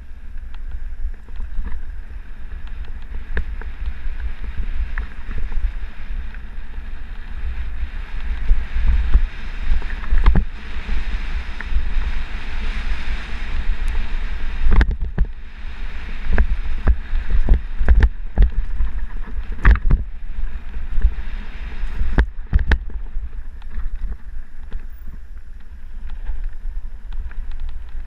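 Wind buffeting the microphone of a camera riding a mountain bike fast down a rough dirt singletrack, a steady low rumble under sharp knocks and rattles from the bike jolting over the trail. The knocks come thickest and loudest between about ten and twenty seconds in.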